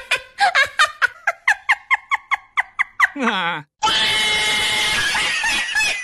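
A high-pitched voice sound effect repeats short syllables quickly, about four or five a second. Just after three seconds a sound glides down in pitch, and then comes a long, loud, scream-like noisy sound.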